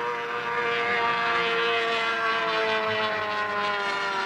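Evinrude V4 racing outboard engine running at high revs, its pitch falling slowly and steadily.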